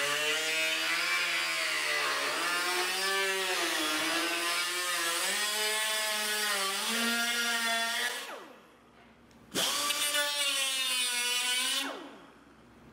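Small cut-off wheel cutting into steel sheet along a welded seam, a loud whine that wavers in pitch as it bites. It runs for about eight seconds, stops, then runs again for about two seconds near the end.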